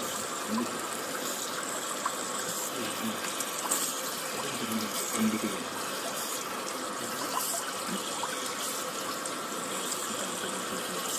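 Water running steadily into a Godrej Glitz top-loading washing machine as it fills during a wash cycle.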